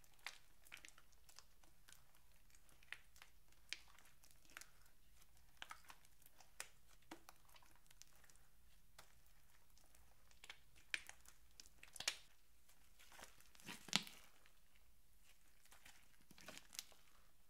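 Thick pink slime being kneaded and stretched by hand, giving scattered small wet crackles and pops as air pockets burst. They come more often and louder about two thirds of the way through.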